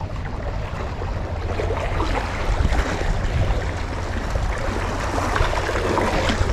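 Small sea waves washing against shoreline rocks, a steady wash of water noise, with wind rumbling on the microphone underneath.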